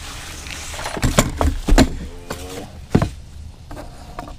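Knocks and thuds of camp cooking gear being handled, one of them something being dropped. There is a cluster of sharp knocks about one to two seconds in and another single knock about three seconds in.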